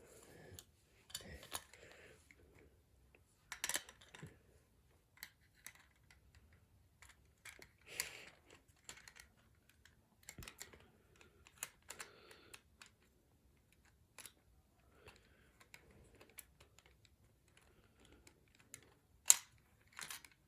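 Faint, irregular clicks and taps of small plastic toy parts being handled and fitted together while a toy's wing pack is reassembled, with one sharper click near the end.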